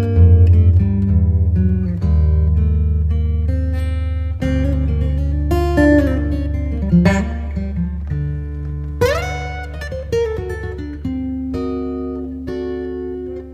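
Background music led by guitar: plucked and strummed notes over a steady low bass, with a sliding note about two thirds of the way through.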